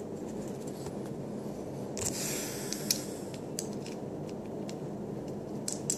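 Faint clicks and a short rustle about two seconds in, from a small metal rebuildable atomizer being handled and turned in the fingers, over a steady background hiss.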